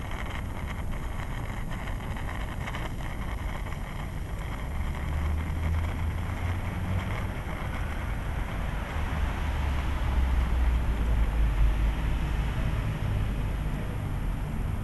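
Steady outdoor city rumble: a low drone of traffic with wind noise on the microphone, swelling about five seconds in.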